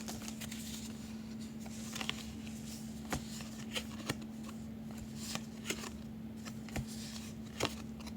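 Cardboard baseball trading cards being handled and flipped through by hand: soft, scattered clicks and slides of card stock against card stock, over a faint steady hum.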